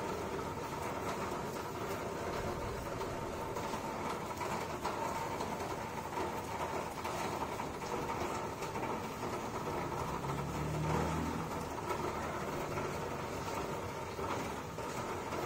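Steady mechanical background hum with a faint steady whine, like a running motor. A lower drone swells and fades about two-thirds of the way through.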